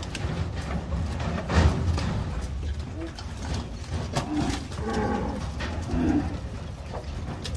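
Nelore cattle in a corral: scattered knocks and clatter over a steady low rumble, with a short low call about halfway through.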